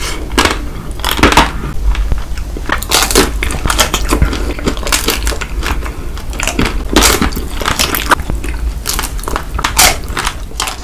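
Close-miked crunching of chocolate-coated Snickers ice cream bars being bitten and chewed: irregular crisp cracks of the chocolate shell, several a second, the loudest coming about a second in, around three seconds, at seven and near ten seconds.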